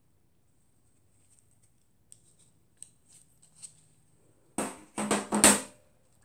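Handling noise from gloved hands: a few faint clicks, then about four and a half seconds in a loud cluster of knocks, scrapes and rustling as the hands take hold of the teapot racer on its cardboard work surface.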